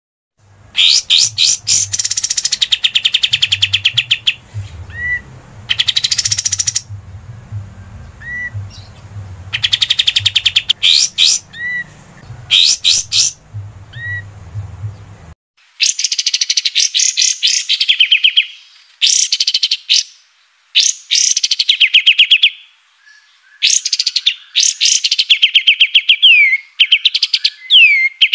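Kapas tembak songbird singing: repeated bursts of very fast rattling trills, each one to two seconds long, with short rising whistled notes between them. A low background hum under the first half stops abruptly about halfway, where another recording begins.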